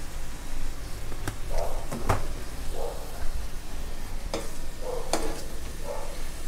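A metal ladle stirring a simmering sauce in a stone-coated nonstick wok, knocking against the pan several times, with soft scraping between the knocks over the sizzle of the sauce.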